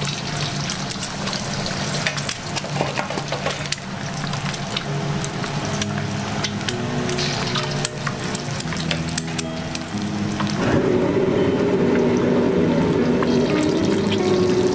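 Eggs frying in hot oil in a wok, the oil sizzling with many sharp crackles and spits.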